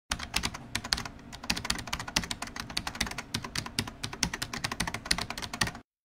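Rapid, irregular clicking of typing on a keyboard, several keystrokes a second, stopping shortly before the end.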